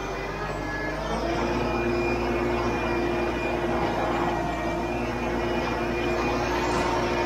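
Kubota MX5400 tractor's four-cylinder diesel engine running steadily under load while pulling a land plane through dirt; about a second in its note shifts up and grows louder, then holds.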